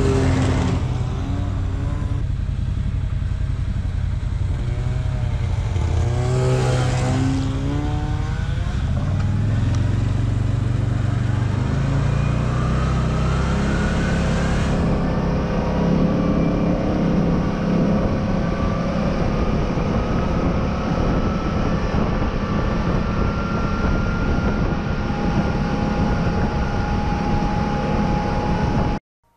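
Snowmobiles pass close by over the idling CFMOTO ZFORCE 800 side-by-side, their engine notes wavering as they go, once at the start and again around six to eight seconds in. The side-by-side's V-twin engine then picks up speed, rising in pitch for several seconds, and runs steadily at trail cruising speed. The sound cuts off suddenly just before the end.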